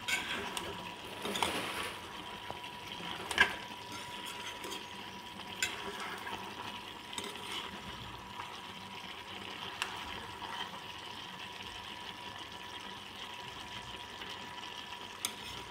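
Cubes of pumpkin and potato sizzling in oil in a small metal wok (kadai) while a steel spoon stirs them, scraping and knocking against the pan now and then, the sharpest knock about three and a half seconds in.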